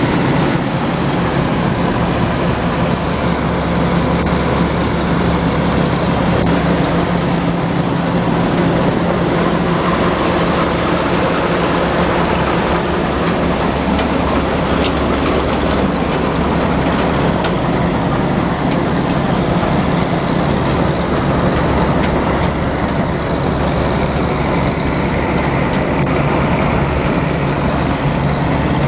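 1981 Massey Ferguson 850 combine harvester running steadily, its engine and moving machinery giving a constant low hum.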